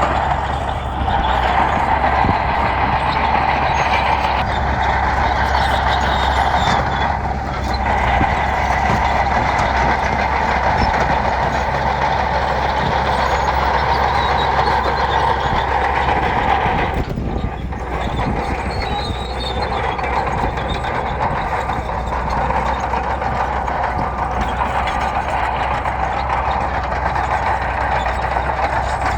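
Heavy diesel earthmoving machinery, a bulldozer at work on gravel, running steadily, with short dips in level about a second in, at about seven seconds and at about seventeen seconds.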